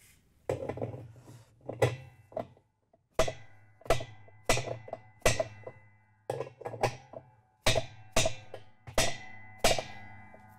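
Plastic hammer striking the handle of a metal spanner wrench about a dozen times to tighten a washer's inner-tub hub nut. Each blow is a sharp knock that rings on with a metallic tone.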